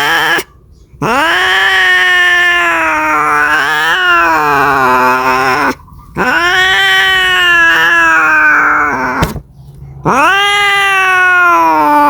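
A domestic cat caterwauling: long drawn-out yowls, each swooping up in pitch at the start and held for several seconds, with short breaks between them. The calls are the kind a cat makes calling for a mate.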